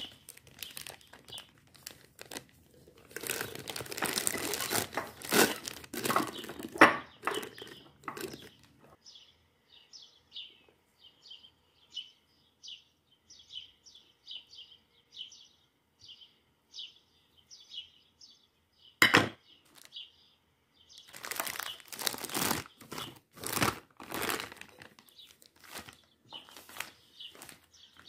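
Crinkling and rustling with scattered clicks. In a lull in the middle a bird chirps steadily, about two short high chirps a second, broken by one sharp click. The crinkling then starts again.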